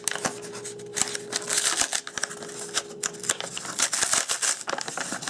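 Corrugated cardboard being pulled apart and flexed in the hands, crackling and rustling in quick irregular clicks, as its wrapping is peeled back.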